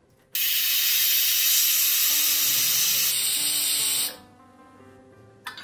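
Pressure cooker whistle blowing off steam: one loud hiss of nearly four seconds that starts and cuts off abruptly, as the egg gravy cooks under pressure. Faint background music follows.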